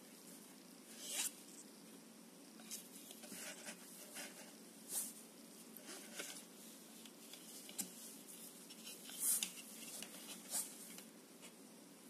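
Faint, scattered rustling and scraping of hands handling a pair of plastic sports sunglasses over a cloth, with short sharper scrapes about a second in and again about three-quarters through.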